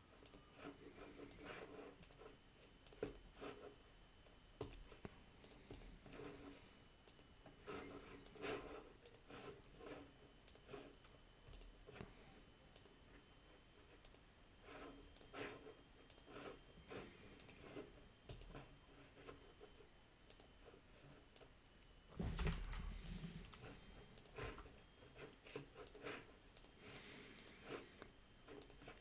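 Faint, irregular computer mouse clicks and keyboard taps, with one louder, duller bump about three-quarters of the way through.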